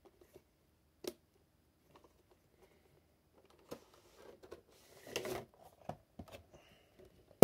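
A cardboard collectible box being handled and opened, with a click about a second in. Then a few seconds of rustling and scraping as the inner cardboard tray with its clear plastic window is slid out of the box.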